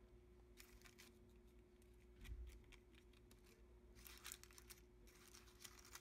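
Faint crinkling of a pleated paper baking cup as a macaron is handled and lifted out of it, in short rustles about four and five seconds in, over a faint steady room hum.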